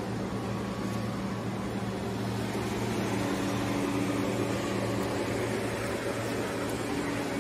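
Steady hum and fan-like rush from the powered-up electrical cabinet of a Biglia B 750 CNC lathe, with a higher tone joining about three seconds in.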